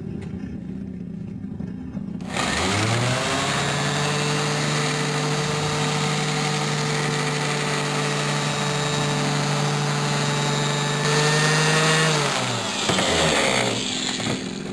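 Electric random orbital sander spinning up about two seconds in, running at a steady pitch while polishing chrome, then winding down near the end.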